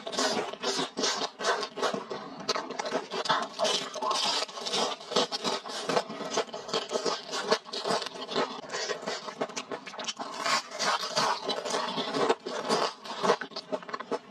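Close-miked eating sounds: quick, irregular wet chewing and smacking of spicy fried noodles and fried spiral potato, many small clicks a second.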